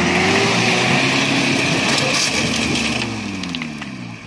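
Willys-style jeep engine revving hard under load as it climbs a mound of loose rock, its pitch rising and falling and easing off near the end, with gravel crunching under the tyres.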